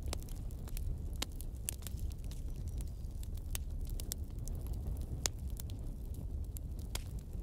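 Wood fire in a fireplace crackling: irregular sharp pops and snaps over a low, steady rumble.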